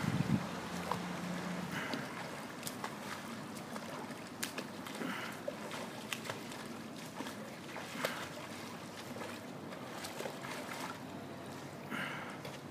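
Pool water splashing and lapping as a child swims, with short splashes from her strokes about every three seconds.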